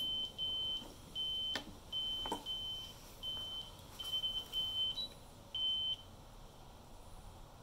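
Radio-control electronics of a jet drive setup sounding a repeating warning beep: one high steady tone about twice a second, each beep under half a second long. A short higher beep comes about five seconds in, and the beeping stops about a second later.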